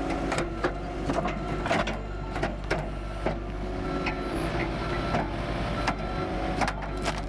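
Firewood processor at work: an engine runs steadily under a string of irregular sharp knocks and cracks of logs being cut and split.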